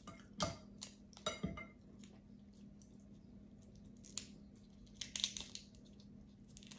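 Cooked snow crab leg shells being cracked and picked apart by hand: sharp cracks and snaps in the first second and a half, and again about four to five and a half seconds in. A low steady hum runs underneath.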